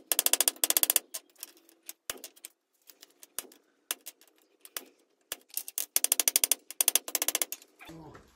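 Hand hammer striking red-hot steel on an anvil: shearing blows to raise the top of a gun barrel's tang. The blows come in two quick flurries, at the start and again about two-thirds of the way in, with single strikes between and a faint anvil ring under them.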